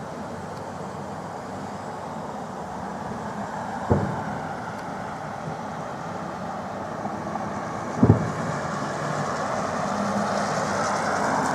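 Fireworks salute: two sharp booms about four seconds apart, over a steady hum of city traffic noise that grows slightly louder toward the end.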